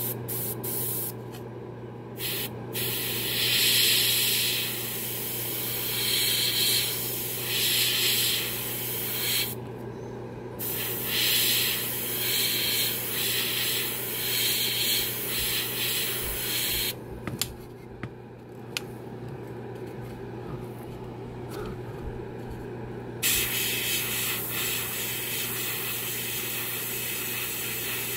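Airbrush spraying Alclad II metallic lacquer, a hiss that starts and stops in bursts of a few seconds, with one longer pause midway. A steady low hum runs underneath.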